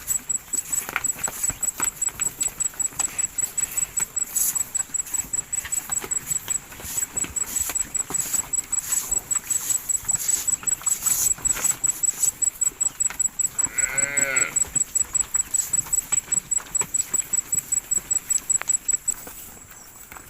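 A high-pitched chirping pulses about four times a second and stops shortly before the end. A farm animal gives a single short call about fourteen seconds in.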